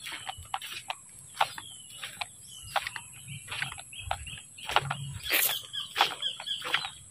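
Footsteps walking through grass and brush on a dirt path, irregular crunching steps about two a second, over a steady high-pitched drone.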